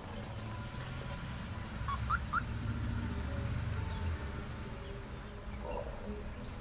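Street traffic ambience: a low rumble of passing vehicles that swells from about one to four seconds in, with three short rising chirps about two seconds in.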